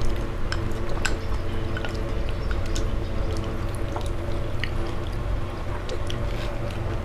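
Wet slurping and chewing of noodle soup, with scattered small clicks from spoons and chopsticks, over a steady low hum.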